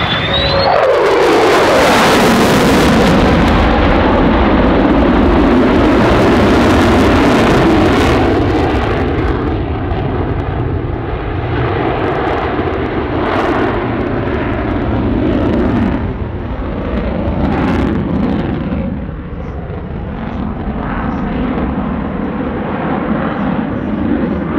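F-35A Lightning II jet fighter passing by with a loud jet roar. Its pitch drops sharply as it goes past in the first second or two. The roar stays loud for several seconds, then slowly fades and rumbles on as the jet flies away.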